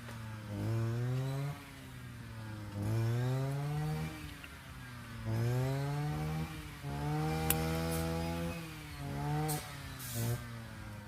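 A small engine revving up and easing back about six times. Each rev is a rising whine that holds for a second or so before dropping back.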